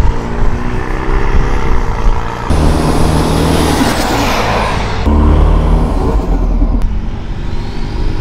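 Nissan Patrol with a swapped-in Isuzu 4JJ1 turbo-diesel accelerating hard past, the engine note climbing in pitch, with a high turbo whistle rising and falling. Several short passes are cut abruptly one after another.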